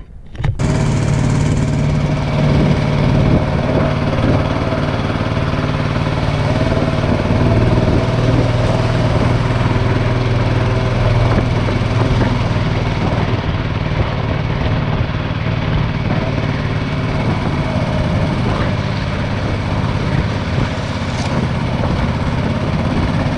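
212cc Predator single-cylinder engine on a Mudskipper longtail mud motor, running steadily at one pitch as it drives the canoe. It comes in loud about half a second in.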